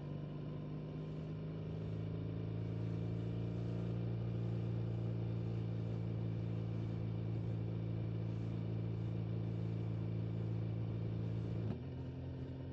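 BMW motorcycle engine running at steady motorway speed, a low, even drone over road and wind noise, growing a little louder about two seconds in. About a second before the end the note changes abruptly and the level drops.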